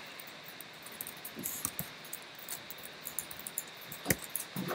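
Soft, irregular clicking of typing on a laptop keyboard over steady room hiss, with one low knock about four seconds in.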